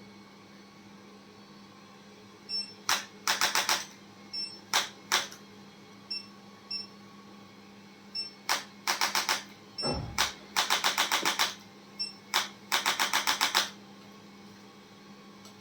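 Handheld chiropractic adjusting instrument firing: runs of rapid sharp clicks, about ten a second and each lasting about a second, four times, with single clicks between. A dull low thump comes about ten seconds in.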